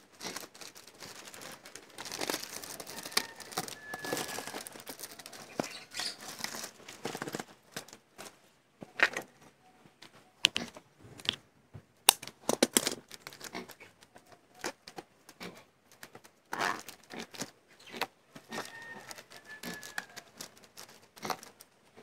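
Clear plastic sheet crinkling and rustling as it is pulled tight over a bucket rim and tied down with string, with sharp snaps and clicks now and then.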